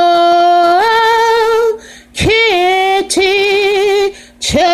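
A woman singing unaccompanied, drawing out long held 'oh' notes that each step up in pitch partway through, with short breaths between the phrases.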